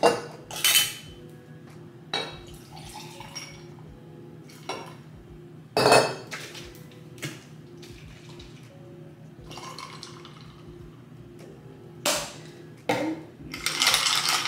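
Kitchen clatter while coffee is being made: a mug, spoon and containers knocking and clinking now and then, over a low steady hum. Near the end there is a longer spell of noise that fits liquid being poured.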